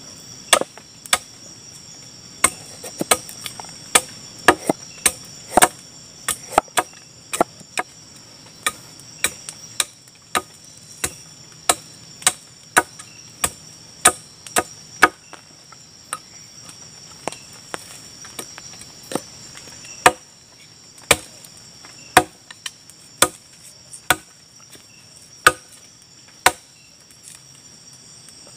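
A large knife chopping vegetables, carrot rounds and then long beans, on a wooden board. Each cut is a sharp knock of the blade on the wood, coming irregularly about one or two a second. A steady, high-pitched insect chorus runs underneath.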